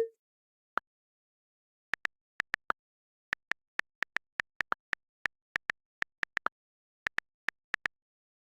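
iPhone on-screen keyboard key clicks while typing a text: single short, sharp ticks in uneven runs of several keystrokes, with pauses of about half a second between runs and dead silence between clicks.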